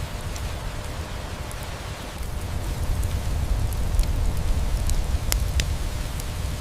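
Steady rain with a deep low rumble, swelling a little in the middle, and scattered sharp crackles of a wood fire, two louder ones a little after five seconds in.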